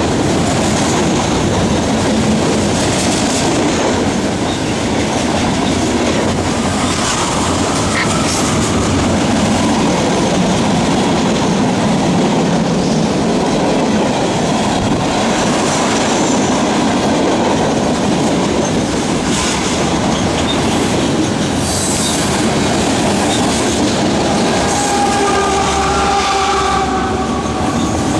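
Freight cars of a long mixed manifest train rolling past close by: a steady loud rumble and hiss of steel wheels on rail with clacks over the rail joints. A brief thin squeal of several tones rises out of it near the end.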